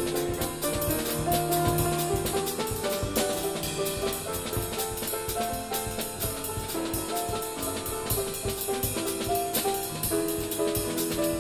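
Piano and drum kit playing together: the drums keep a steady, busy pattern of stick strokes on the cymbals and drums under sustained piano notes and chords.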